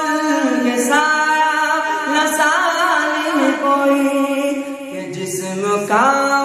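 A male voice singing an Urdu naat, drawing out long held notes on a line without words breaking in, with wavering turns in pitch about halfway through.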